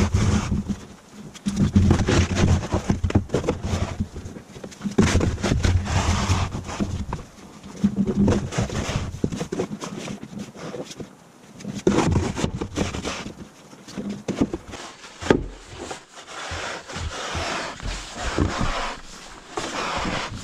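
Snow shovel scraping and pushing snow along wooden deck boards, in repeated strokes of one to three seconds each with short pauses between them.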